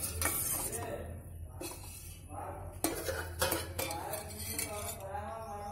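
Steel spoon clinking and scraping against a stainless steel pot of sugar syrup as gulab jamuns are moved about, with several separate clinks over a steady low hum.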